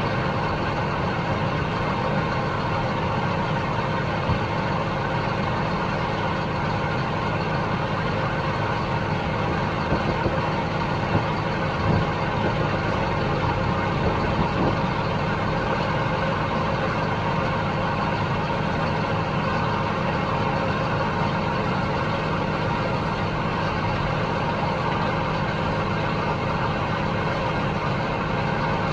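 Heavy farm machinery's diesel engine running steadily, a continuous drone with a few light knocks near the middle.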